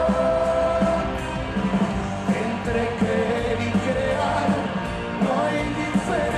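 A live rock band playing at full volume, with a man singing lead into a microphone over the band.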